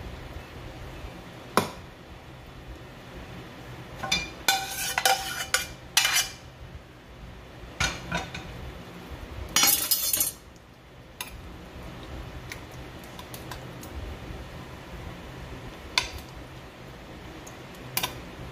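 Metal ladle and spoon clinking and scraping against a glass baking dish and a stainless steel pot as meat sauce is scooped and spread. Single sharp clinks come every few seconds, with a busier run of clanks and scrapes about four to six seconds in and a longer scrape around ten seconds.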